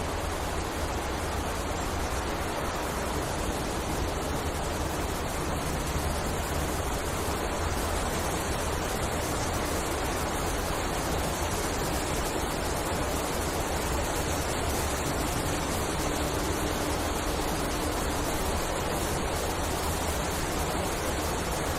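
Wind blowing steadily through forest trees, a continuous even rushing with no gusts standing out.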